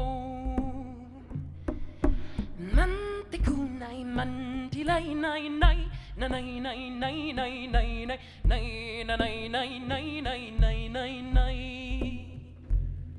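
An icaro, a sung healing chant, performed as a musical blessing: a voice sings a wavering melody over low beats that recur every second or two.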